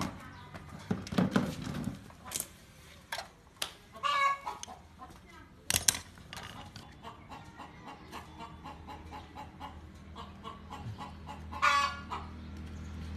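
Chickens clucking in the background, with short calls about four seconds in and again near the end. Between them come light clicks from hands handling the stove's wires and metal parts.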